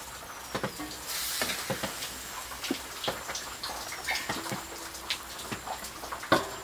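Pork and potato curry sizzling faintly in an iron wok over a wood fire, with scattered sharp pops and crackles. Near the end a steel plate clanks onto the wok as a lid.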